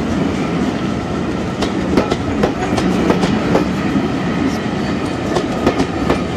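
A steam-hauled passenger train rolling by, its wheels clicking irregularly over the rail joints above a steady rumble.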